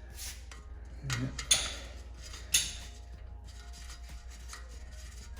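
A few sharp metallic clinks of a wrench and hex bit on the loosened 14 mm hex fill plug of a rear differential as it is backed out. A steady low hum runs underneath.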